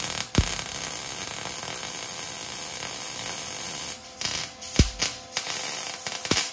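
MIG welder arc hissing and crackling steadily on thin sheet steel for about four seconds, then sputtering in short bursts with a few sharp pops near the end. The arc burns right through the thin metal.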